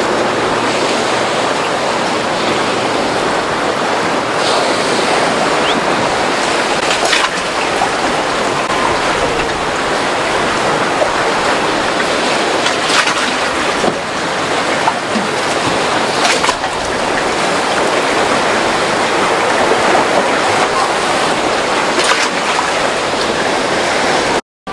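Rough inlet water and breaking waves, a steady loud rushing wash, with a few faint sharp clicks scattered through it.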